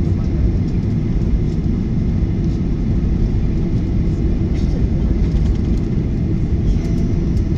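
Steady low rumble heard inside the cabin of a Boeing 737-900ER taxiing after landing: its CFM56-7B turbofans run at taxi power while the airframe rolls over the taxiway joints. A few faint clicks and rattles sound now and then over it.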